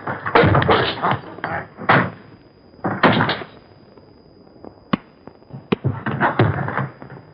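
Film fight sound effects: thuds of punches and bodies hitting, with scuffling, coming in several bursts. The middle is quieter, broken by a few single sharp hits.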